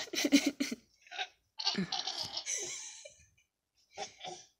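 Toddler laughing: a run of quick giggles, then a longer breathy laugh about two seconds in, and a couple of short giggles near the end.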